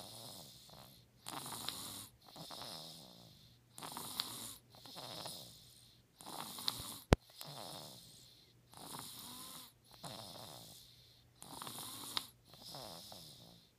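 A sleeping four-month-old snoring steadily, each in-and-out breath coming roughly every three seconds. A single sharp click sounds about seven seconds in.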